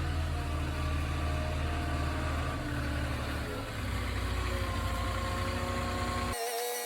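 Delivery truck engine idling steadily, its low note shifting a little after three and a half seconds; it cuts off abruptly near the end.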